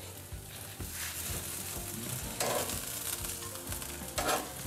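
Marinated chicken wings sizzling on a hot gas-grill grate as they are lifted off with tongs, a steady hiss with two brief louder bursts, about halfway through and near the end.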